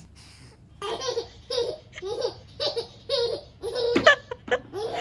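A baby laughing in a run of short, rhythmic belly laughs, about two a second, starting about a second in, with a sharp knock about four seconds in.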